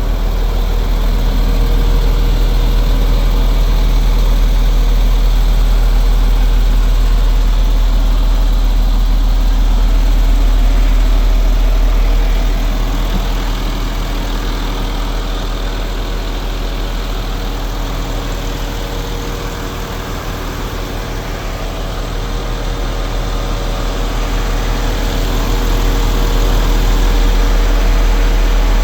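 Diesel engine of a 2013 MAN TGX 400 truck running steadily with a deep hum, dropping somewhat in level about halfway through and coming back up near the end.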